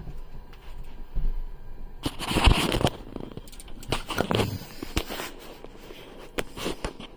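Handling noise of a phone being grabbed with its microphone covered: rubbing, crackling and a run of clicks, starting about two seconds in and loudest about half a second later, then thinning to scattered clicks.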